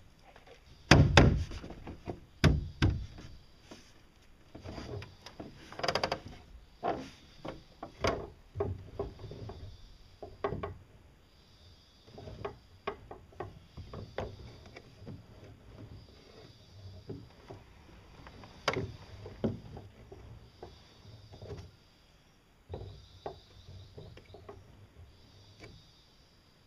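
Irregular knocks and clunks from handling the homemade boat's rudder and upright steering post, the heaviest ones in the first several seconds and one more about two-thirds of the way through.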